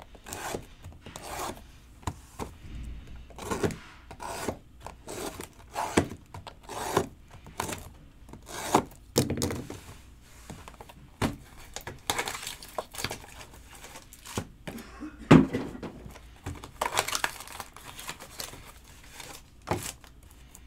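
Cardboard trading-card hobby boxes and foil packs being handled and shuffled on a table: irregular rubbing and scraping, with a few sharp knocks, the loudest about two-thirds of the way in.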